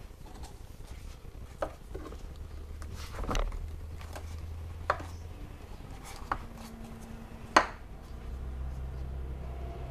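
Handling sounds from fitting the covering into a gauge hole of a vinyl-covered dashboard panel: a handful of sharp taps and clicks and a short rubbing scrape about three seconds in, with the loudest click a couple of seconds before the end.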